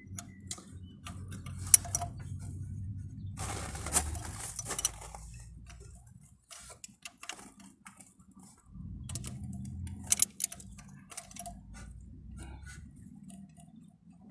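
Socket ratchet clicking in short strokes while a diesel engine's glow plug is unscrewed from the cylinder head, with metal scraping about four seconds in and a low rumble in two long stretches.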